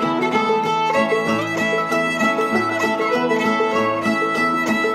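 Old-time string band playing a fiddle tune: fiddle lead over a steady plucked rhythm of banjo, guitar and mandolin.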